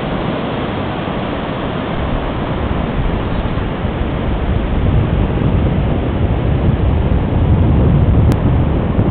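Ocean surf breaking, a steady rush of noise, mixed with wind buffeting the microphone that grows stronger in the second half.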